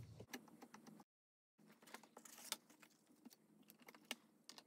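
Near silence with faint, scattered light taps and clicks from handling rubber-stamping supplies while inking and pressing a stamp. The sound cuts out completely for about half a second near the start.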